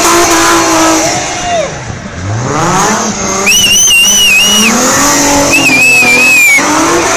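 Race car drifting in circles: the engine revs hard, drops off briefly about two seconds in and climbs again. Loud, wavering tyre squeal comes in two long stretches, from about halfway through and again near the end, as the tyres spin and smoke.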